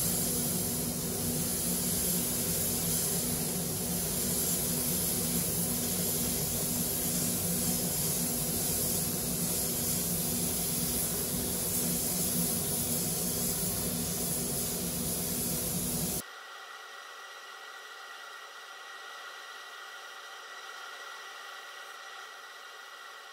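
Air-fed paint spray gun hissing steadily while spraying red paint. About sixteen seconds in, the sound drops suddenly to a much quieter steady hiss and hum.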